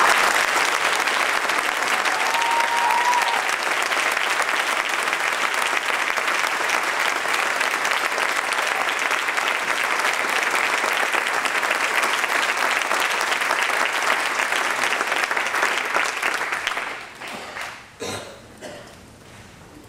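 Audience applauding, dying away about sixteen seconds in.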